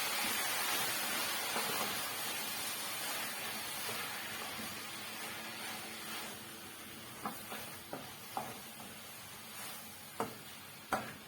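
Wet fry pork with onions, green peppers and a freshly added tomato and courgette mixture sizzling in a pan as it is stirred; the sizzle dies down gradually. A few sharp knocks of the spoon against the pan come in the second half.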